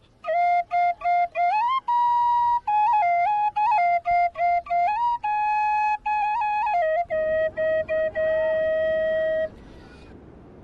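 A solo flute plays a melody of short notes with quick slides and grace notes between them, ending on a long held note that stops about nine and a half seconds in. A low, steady rushing noise comes up beneath the last note and is all that is left after it.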